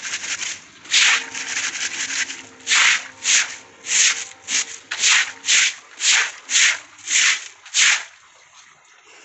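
Stiff stalk broom scrubbing and sweeping muddy water across a wet concrete floor, in brisk strokes about two a second that stop about eight seconds in.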